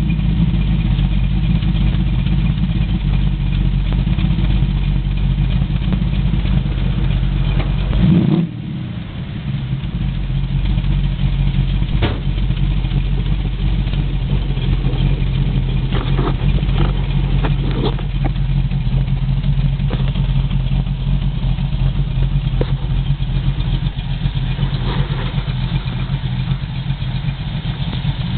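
Rover V8 engine in a Vauxhall Chevette running steadily at idle through a new exhaust. About eight seconds in it surges briefly, then the low rumble drops away for a moment before settling back to a steady idle. A few light clicks come through the middle.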